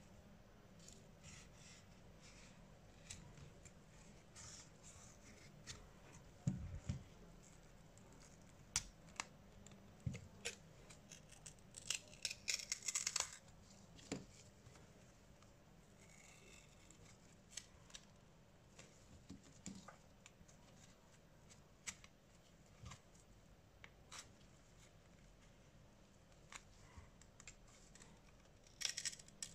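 Sparse small clicks, taps and scrapes of hand tools and parts being handled while a Samsung Galaxy A5 (2016) smartphone is worked on, with a brief scratchy rasp about twelve seconds in.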